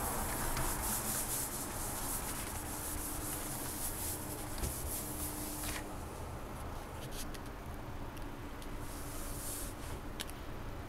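Sponge scrubbed back and forth on a glass-ceramic hob, a steady scratchy rubbing that stops about six seconds in. A few faint clicks follow.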